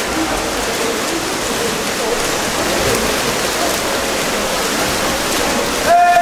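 Steady splashing of water from water polo players swimming and fighting for the ball in an indoor pool, with faint voices in the hall. A loud shout starts near the end.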